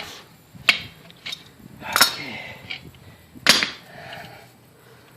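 A series of about six sharp knocks or clanks at irregular intervals, some ringing briefly, from hard objects struck or set down during plumbing work.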